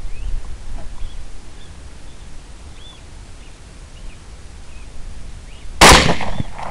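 Faint, repeated high squeaks from an electronic predator call playing a rat distress sound, then a single loud rifle shot near the end, followed by a trailing echo.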